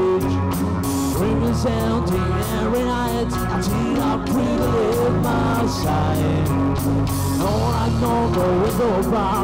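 A live rock band playing: electric guitars and a drum kit keeping a steady beat, with a young man singing lead.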